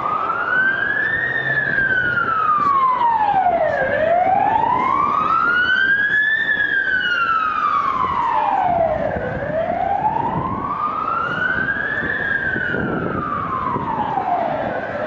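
Police van siren on a slow wail, rising and falling in pitch about every five and a half seconds through nearly three full sweeps.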